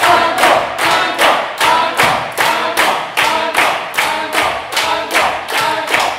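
Audience clapping in rhythm, about three claps a second, with voices calling out along with the beat as they ask for an encore.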